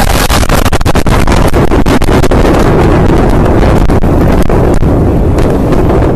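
Blast wave of a huge explosion: a continuous, very loud roar with heavy wind buffeting on the microphone, broken by many sharp cracks and clatters of flying debris.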